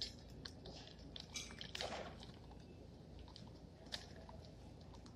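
Salted peanuts trickling from a paper packet into a plastic Coke bottle: faint scattered clicks and packet rustling, with a sharper click about four seconds in.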